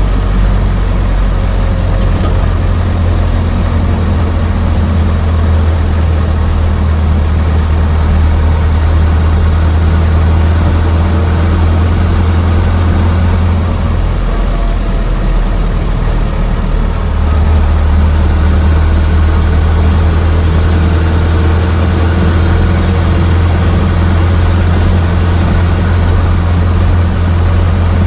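Old car engine running steadily with a deep, even hum, easing off briefly about halfway through and then picking back up.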